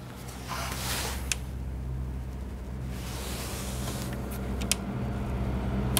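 A motor vehicle's engine running with a steady low hum that grows gradually louder, with a few light clicks.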